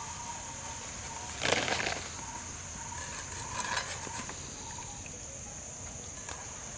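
Steady high-pitched insect drone, with a brief louder rustling or scraping noise about a second and a half in and a softer one around four seconds in.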